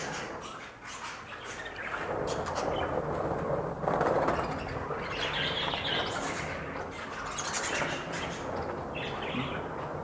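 A flock of small pet cage birds flying loose around a room, chirping with wings flapping, with a louder flurry about four seconds in.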